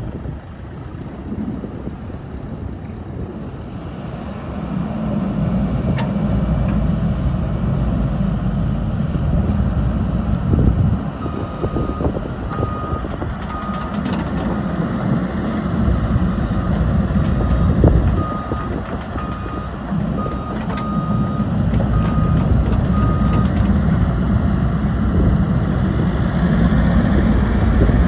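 Wacker Neuson ET145 tracked excavator's diesel engine running, growing louder about four seconds in as the machine is worked. A motion alarm beeps on and off through the middle stretch, with a few sharp knocks from the machine.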